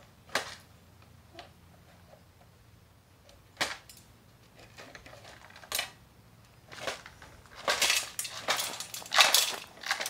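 Toy excavator working in loose gravel: a few single sharp clacks, then near the end a dense burst of scraping and rattling stones as the bucket digs and scoops.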